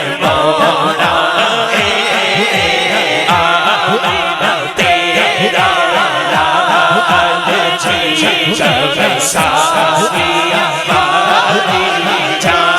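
Naat recital: a man's voice singing long, ornamented held lines, with other voices and a quick run of deep beats underneath.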